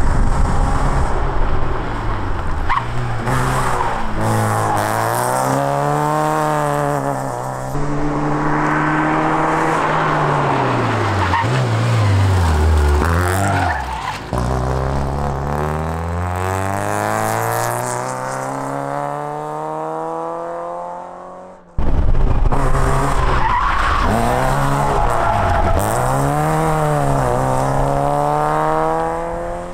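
Competition car engine revving hard on a hill-climb run, pitch climbing and dropping again and again as it changes gear and lifts off. It cuts off suddenly about three-quarters of the way through, and another engine picks up with the same rising and falling revs.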